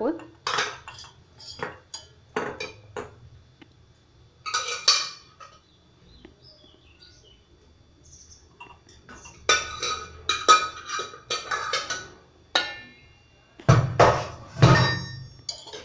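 Metal pot and kitchen utensils being handled on a gas stove: scattered clinks and knocks, a quiet stretch in the middle, then a busier run of clatter and a few heavier knocks near the end, some strikes ringing briefly.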